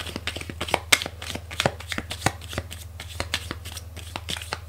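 A deck of tarot cards shuffled by hand: a run of irregular, quick card snaps and slides.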